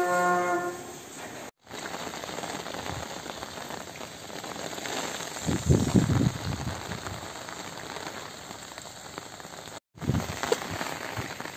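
Steady hiss of rain falling outdoors, with irregular low rumbles near the middle and end. A short pitched tone sounds at the very start.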